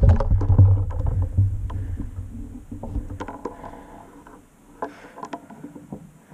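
Movement noise of a running player coming to a stop: a low rumble of footfalls and gear dies away over the first couple of seconds. It is followed by scattered faint clicks and rustles.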